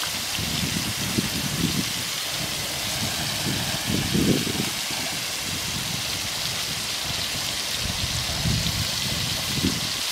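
Skewered prawns shallow-frying in hot oil: a steady sizzle throughout, with a few brief low rumbles.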